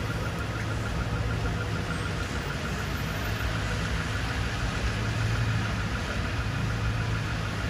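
Steady hiss of heavy rain and tyres on a wet street, under the low steady hum of car engines idling and moving in traffic, with a faint fast regular ticking throughout.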